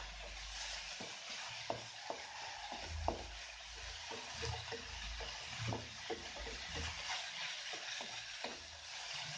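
Wooden spatula stirring and scraping grated coconut around a nonstick wok, with a steady sizzle underneath and irregular soft knocks of the spatula against the pan, as the coconut filling begins to cook.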